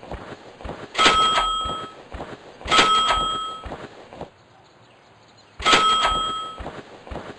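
Three sudden strikes, each leaving a high ringing tone that fades over about a second, like a struck bell.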